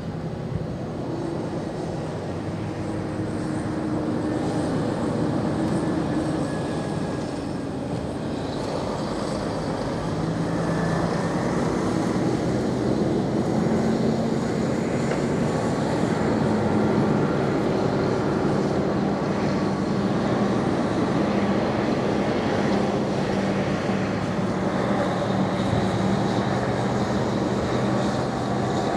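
Vehicle engines running at the ferry port: a steady drone with a few slowly shifting hum tones, growing louder about four seconds in and again around eleven seconds.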